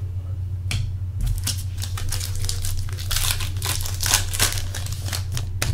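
Shiny trading-card pack wrapper being torn open and crumpled by hand, a dense crinkling crackle starting about a second in and running until near the end.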